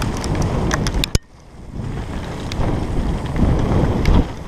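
Wind buffeting a helmet-mounted camera and tyres running over a loose dirt and leaf trail on a fast mountain-bike descent, with rattling clicks from the bike. About a second in there is a sharp knock, after which the noise drops away suddenly and builds back up.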